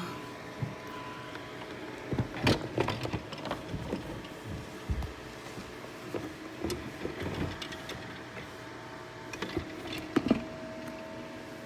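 An egg incubator being covered and handled: scattered clicks and knocks of plastic parts, in two clusters near the start and near the end, over a steady hum.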